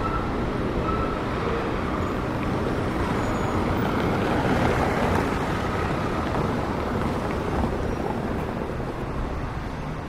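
City street traffic: a steady low rumble of passing vehicles.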